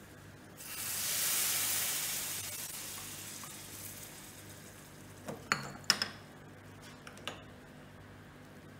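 Hot tempering oil with mustard seeds, cumin and dried red chillies is poured into kadhi and sizzles loudly, a hiss that swells within a second and fades away over the next few seconds. Later comes a handful of sharp knocks as the kadhi is stirred with a wooden spoon.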